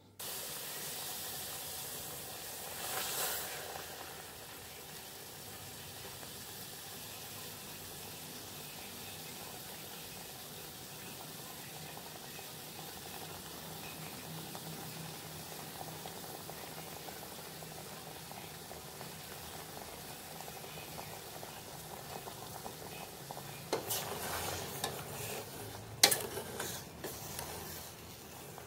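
Water with pandan leaves and sugar heating in an aluminium saucepan, bubbling steadily, with a brief louder swell about three seconds in. Near the end a ladle stirs the syrup and knocks against the sides of the pot several times.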